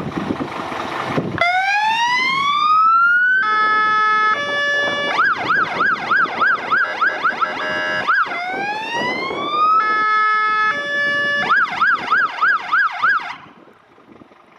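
Fire engine's electronic siren cycling through its tones: a rising wail, a few held tones, then a fast yelp of about four sweeps a second, the cycle running twice before it stops. A short rush of noise comes before it.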